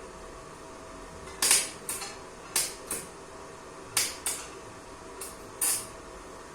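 Workshop work noise: about eight short, sharp bursts, mostly in close pairs, each fading quickly, over a steady low hum.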